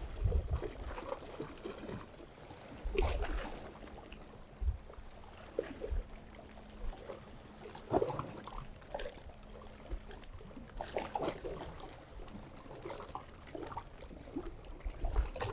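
Seawater washing against shoreline rocks, trickling and splashing in small irregular surges.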